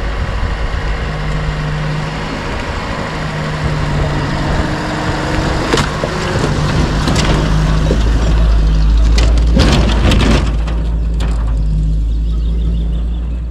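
UAZ-469 off-roader driving: steady engine and road rumble, with knocks and rattles over bumps, loudest about ten seconds in.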